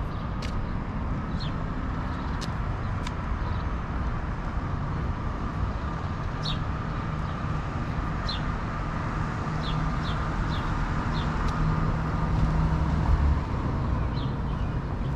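Downtown street traffic rumbling steadily, growing louder about twelve seconds in as a vehicle passes close. Short high chirps sound now and then above the traffic.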